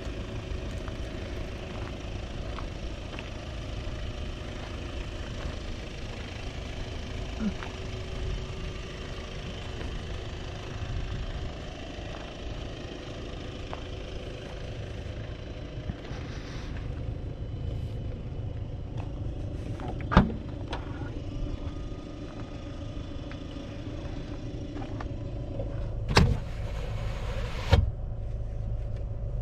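The Škoda Kodiaq's 2.0 TDI four-cylinder turbodiesel and its tyres give a steady low rumble as the car drives. Three sharp knocks stand out in the later part, the loudest about two-thirds of the way through.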